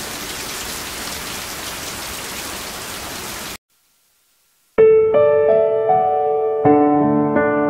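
Steady rain hiss that cuts off suddenly about three and a half seconds in, then a second of silence, then solo piano starts, playing slow single notes and chords.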